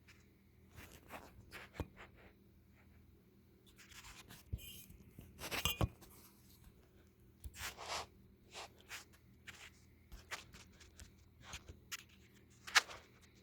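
Faint steady low hum, typical of a ceiling fan motor running, under scattered short clicks, rustles and scrapes, with one sharp click near the end.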